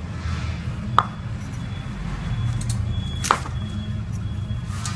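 Kitchen knife slicing through raw sweet potato and knocking on a wooden cutting board: two sharp chops, about a second in and past three seconds, with a third at the very end, over a steady low hum.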